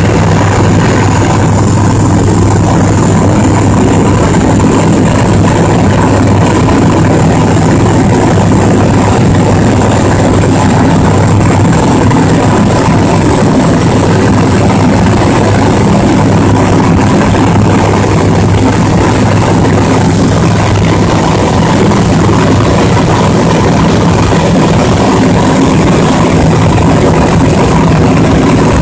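Light aircraft's propeller engine heard inside the cockpit in cruising flight: a loud, steady drone that holds even through a banking turn.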